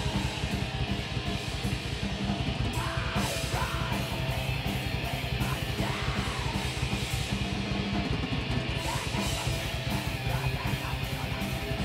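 Live heavy metal: two distorted electric guitars over a drum kit, with a very fast, unbroken kick-drum beat.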